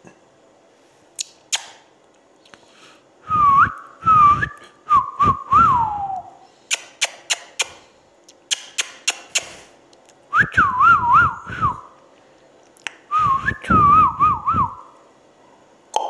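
Whistling in three warbling bouts, each a second or two long, the pitch looping up and down. Between the bouts come sharp clicks, some in quick runs of four or five.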